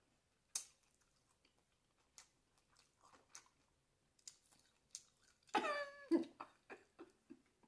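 Close-miked chewing of crunchy hard-shell tacos: scattered faint crunches and wet mouth clicks. About five and a half seconds in there is a short voiced sound, falling in pitch.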